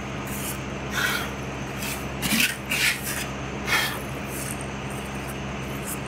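A hand stirring through winnowed wheat berries in a plastic bucket: four short rustling swishes of grain in the first four seconds. A fan hums steadily underneath.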